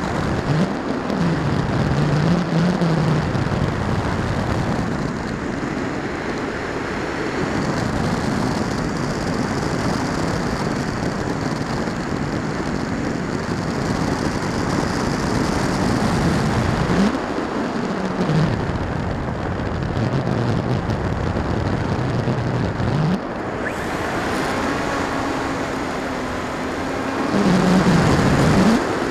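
Wind rushing past the onboard camera of a Firstar 2000 V2 RC FPV glider in flight, with a low hum that rises and falls in pitch several times.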